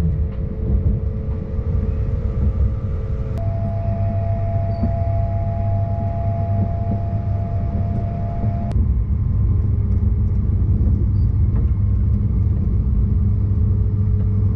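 Cabin noise of a moving train: a steady low rumble with a steady hum above it. The hum changes pitch abruptly twice, about a quarter and again about three fifths of the way in.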